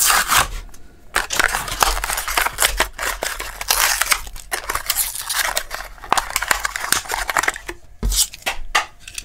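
A Matchbox blister card being opened by hand: the cardboard tearing and the plastic blister crinkling, a continuous scratchy rustle with many small clicks and snaps.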